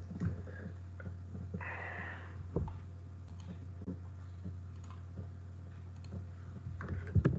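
Scattered soft clicks of a computer mouse, a few single clicks spread out and a quick cluster near the end, over a steady low hum.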